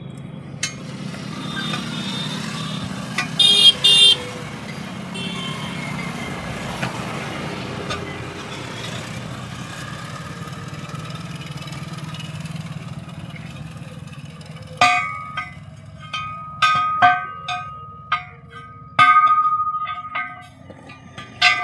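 Road traffic running steadily, with two short vehicle horn toots about three and a half seconds in. From about fifteen seconds on come a dozen or so sharp, ringing clangs of a hammer striking steel, irregularly spaced.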